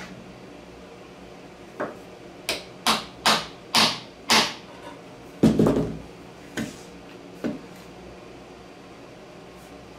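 Hammer tapping a bolt into a wooden handle: six sharp strikes about half a second apart, growing louder, then a heavier, duller knock and two lighter taps.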